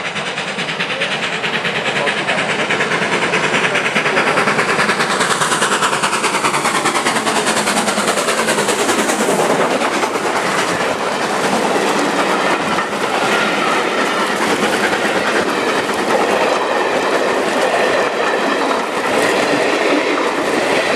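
Steam locomotive running fast past close by, its sound rising as it approaches and falling in pitch as it passes. The coaches then roll by with a steady clickety-clack of wheels over the rail joints.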